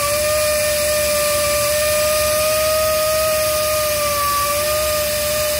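Portable on-site crankpin grinding machine working on a Wartsila 8L32 crankshaft, its air-driven motor running with a steady hiss and a steady whine that wavers slightly in pitch.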